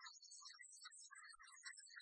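Near silence: only a faint, broken high hiss.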